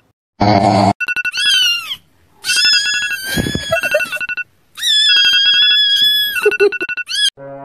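A phone alarm beeping in fast pulses, broken by a short low grunt-like burst about half a second in, then a kitten's screaming cries: a short one, then two long high ones, with the beeping carrying on in the gaps until it all stops near the end.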